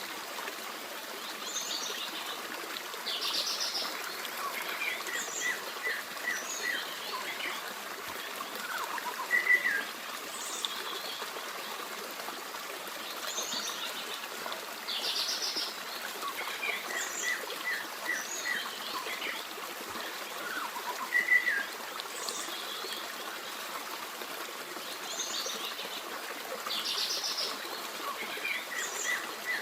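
Forest stream babbling steadily, with songbirds chirping and trilling over it; the same sequence of bird calls recurs about every twelve seconds.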